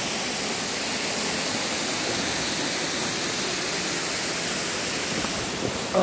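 Little North Fork Falls pouring into its plunge pool: a steady, even rush of falling water. A brief knock near the end.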